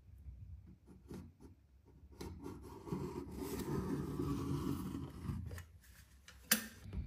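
Plastic scraper scraping old silicone off a shower tray seam in short strokes, followed by a denser stretch of scraping or rubbing lasting a few seconds, and one sharp click near the end.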